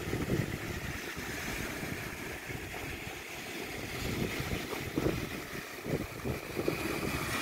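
Wind buffeting a phone's microphone in irregular low gusts, over a steady hiss of open-air noise at the shore.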